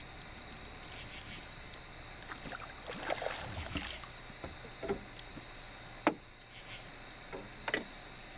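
A hooked flathead catfish thrashing and splashing at the water's surface beside the boat, with a few sharp knocks against the boat near the end. A steady high-pitched insect chorus runs underneath.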